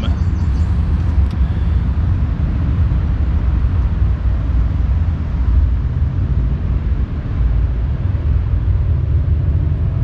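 Steady low rumbling outdoor noise with an even hiss above it.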